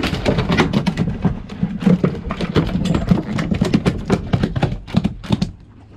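A freshly gaffed mahi-mahi thrashing on the boat deck, its tail beating the deck in a fast, irregular run of knocks and thumps that stops near the end.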